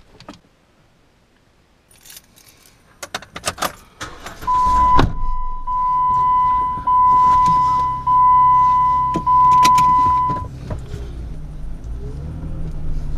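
Keys jangling and clicking, then an SUV's engine starts about four and a half seconds in and settles to a steady idle. A steady high electronic warning chime sounds over the engine for about six seconds, with a few short breaks, then stops.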